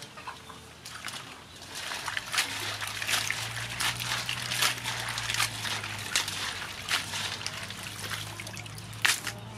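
Razor clams being washed by hand in a metal basin of water: the water sloshes and splashes as the shells are rubbed and stirred, with many short clicks.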